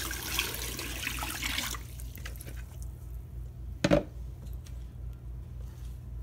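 Hot water pouring from a bowl into a foil-lined sink, stopping abruptly about two seconds in. About four seconds in there is a single sharp thump, followed by a few light clicks.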